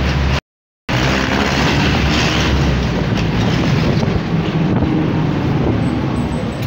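Steady road and engine noise of a moving vehicle in street traffic, with wind on the microphone. The sound cuts out completely for about half a second near the start.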